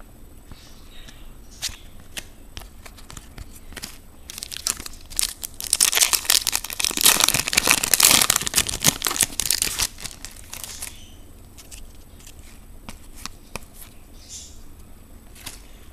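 Foil wrapper of a trading-card pack being torn open and crinkled, densest and loudest from about five to ten seconds in, with lighter clicks and rustles of cards being handled before and after.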